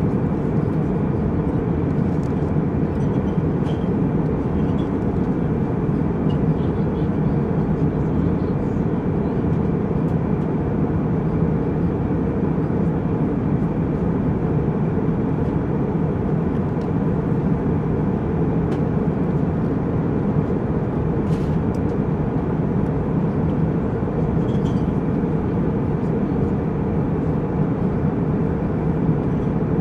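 Jet airliner cabin noise in flight: a steady, even rush of engine and airflow noise, heaviest in the low range.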